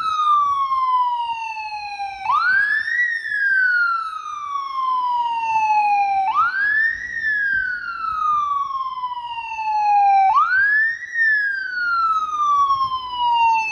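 Ambulance siren sounding a slow wail. Each cycle jumps quickly up in pitch and then falls slowly over about four seconds, and it rises three times.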